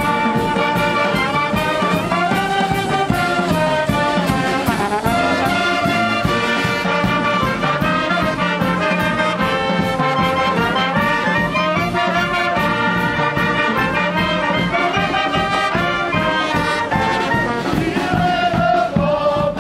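A banda, a festive street band of clarinets, alto saxophones, trumpets, trombone and drums, playing a lively march-like tune in unison, with a steady drum beat underneath.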